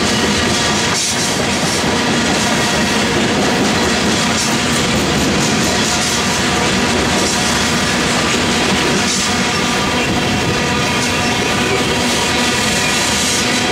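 A freight train of loaded covered hopper cars rolling steadily past. It gives a continuous rumble and rattle of wheels on the rails, with a steady ringing drone of several tones over it.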